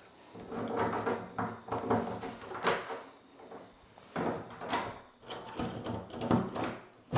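Door knob hardware being handled and fitted: metal parts of a locking door knob clicking and knocking together at irregular moments, with a sharp, loud click near the end.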